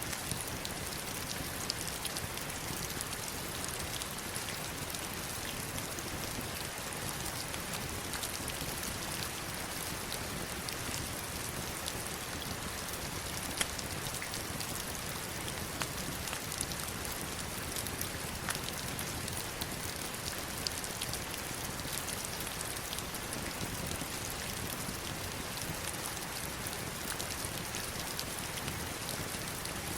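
Heavy rain falling steadily on stones and a river: a dense, even hiss with scattered sharper drop hits.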